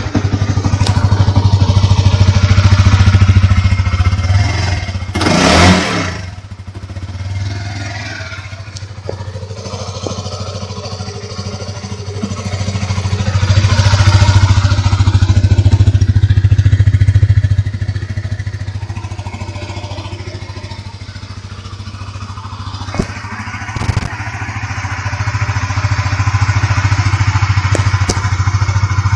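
2011 Honda CBR 150R's fuel-injected single-cylinder four-stroke engine idling steadily. It grows louder and softer as the microphone passes close to the exhaust muffler and away again. A brief rush of noise comes about five seconds in, and a couple of short knocks come near the end.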